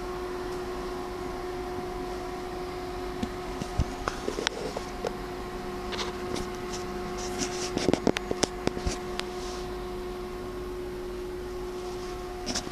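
A steady mechanical hum with a constant tone, with scattered clicks and knocks, the loudest a cluster about eight seconds in.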